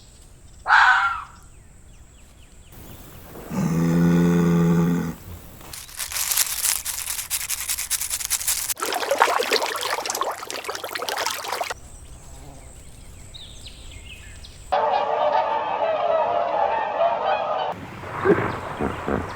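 A series of different animal calls played one after another, with honking among them.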